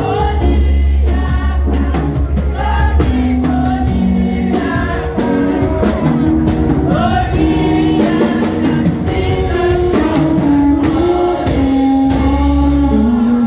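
A group of women singing together in an upbeat song, backed by a live band with drums and a heavy bass.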